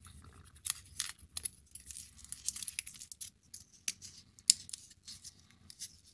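Faint, irregular clicks, scratches and rustles of foam-board model pieces being handled, with a sharper click about four and four and a half seconds in.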